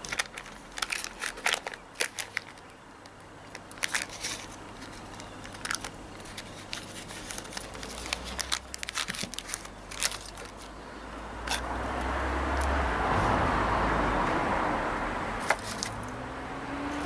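Paper butter wrapper crinkling as a stick of butter is unwrapped, a run of small crackles and rustles. In the second half a rushing noise with a low rumble swells and fades over a few seconds, as of a vehicle passing.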